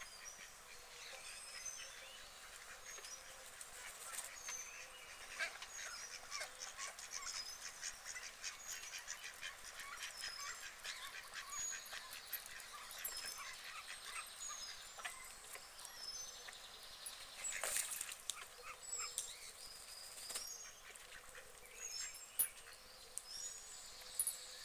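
Birds calling: scattered short high chirps, with stretches of quick clicking, densest from about five to ten seconds in and again around eighteen seconds.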